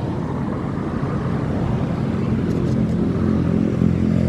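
Road traffic: a motor vehicle's engine running, with a low engine hum growing louder in the second half as it draws near.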